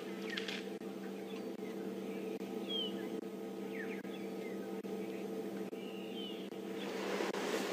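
Wild birds giving short scattered chirps, several of them quick falling notes, over a steady low hum. A louder noisy rush builds near the end.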